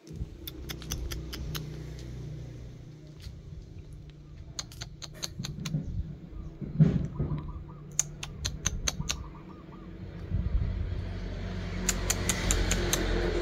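A low steady hum with four quick runs of sharp ticks, each run five to seven ticks, and a single louder knock about seven seconds in.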